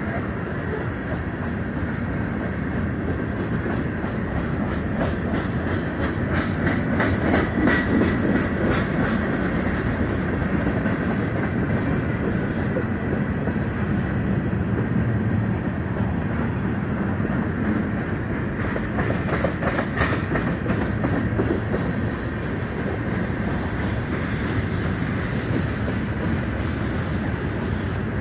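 Freight cars of a passing BNSF mixed freight train rolling by on the rails: a steady rumble of steel wheels with runs of rapid clickety-clack, loudest about a quarter of the way in and again about two-thirds through.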